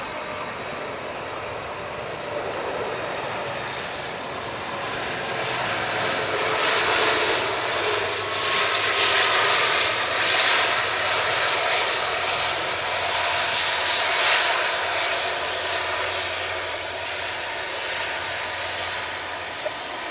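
Jet engines of a twin-engine Airbus A330 airliner on its landing roll along the runway, a steady roar that swells as it passes close, peaking in the middle, then eases off.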